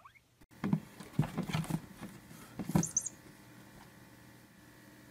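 A cat pawing and batting at something on a cardboard box: a quick run of taps, knocks and scratches over the first three seconds, with one brief high-pitched squeak about three seconds in.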